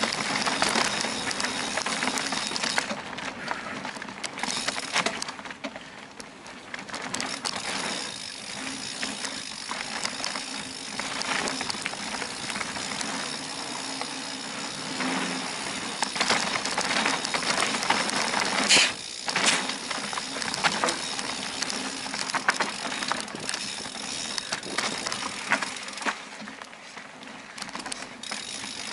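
Mountain bike riding a dirt forest trail: tyres rolling over dirt and roots, with the chain and frame rattling and the freewheel hub ticking. There is a sharp knock from a bump a little past the middle.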